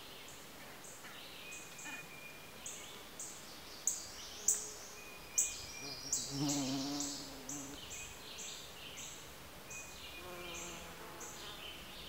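Bee buzzing inside a Kentucky lady's slipper orchid's pouch, with a few sharp taps as it bumps the walls. About six seconds in, a louder buzz as it works its way out through an exit hole, and a fainter buzz again near the end. Short high chirps repeat irregularly in the background.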